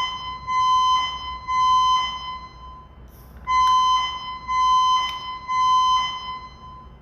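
Building evacuation alarm beeping a steady high tone in the temporal-three pattern: three half-second beeps, a pause of about a second and a half, then three more. This is the standard signal to evacuate.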